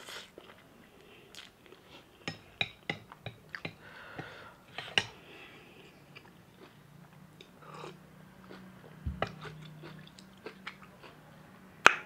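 A person chewing and slurping spicy ramen noodles: a run of short, wet mouth clicks and smacks with brief slurps. One sharp click just before the end.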